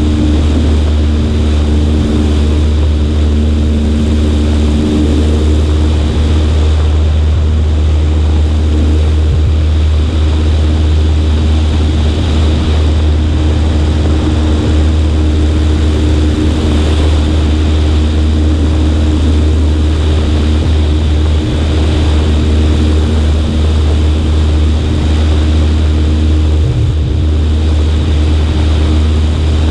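Cessna 140A's four-cylinder engine and propeller running steadily with a low, even drone, heard with air rushing over a wing-mounted microphone.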